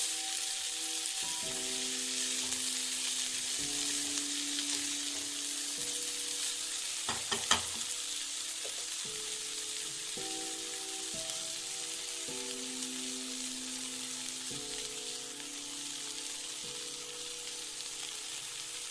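Chopped spring onions and potato pieces sizzling steadily in hot oil in a nonstick kadai, stirred with a wooden spatula at first. A couple of sharp knocks come about seven seconds in.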